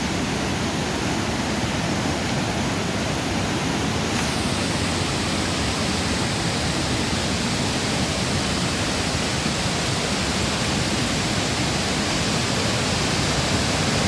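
Steady rushing of a river's flowing water, even and unbroken.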